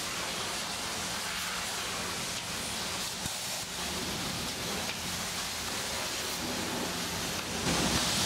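Self-serve car wash high-pressure spray wand hissing steadily as the water jet hits the car's bodywork, a little louder near the end.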